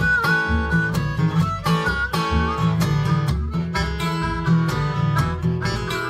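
Eastman acoustic guitar fingerpicked in a country blues style, a steady bass pulse about twice a second under the melody notes.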